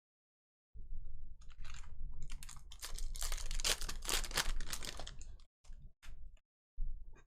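Foil trading-card pack wrapper being torn open and crinkled, a dense crackling rustle that is loudest in the middle, then a few short rustles of cards being handled near the end.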